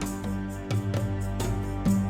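Instrumental background music of plucked strings, with a picked, mandolin- or guitar-like melody over sustained low notes.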